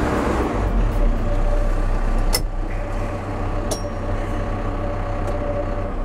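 Cat F2 backhoe loader's diesel engine running steadily with a low hum, with two short clicks about two and a half and three and a half seconds in.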